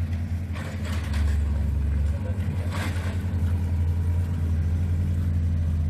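Small construction-machine engine running at a steady idle, a low even hum, with a couple of faint knocks about one and three seconds in.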